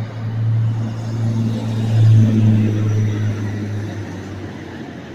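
A motor vehicle's engine hum, steady in pitch, swelling about two seconds in and then fading away.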